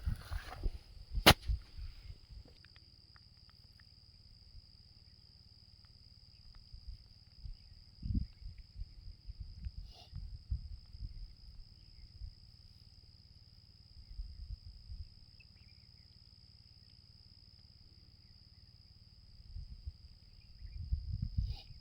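Steady high-pitched drone of insects, with irregular low rumbling thumps and one sharp click about a second in.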